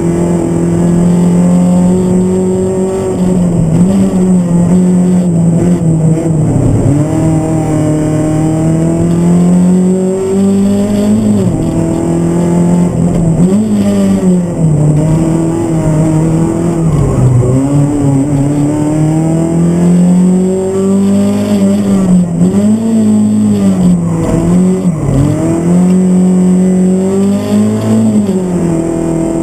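Hyundai Accent GT rally car's engine heard from inside the cabin, revving hard and running up and down through the gears. The pitch climbs and falls over and over, with sharp dips at the gear changes and lifts for corners.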